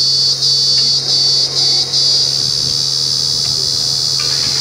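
Truck-mounted borewell drilling rig running with a steady low hum, under a loud, steady high-pitched shrill that cuts out briefly several times in the first two seconds.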